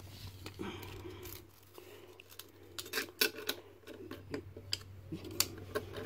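Quiet handling of a steel tape measure and pencil against masking tape, giving a few light clicks and rattles, mostly in the middle and near the end, over a low steady hum.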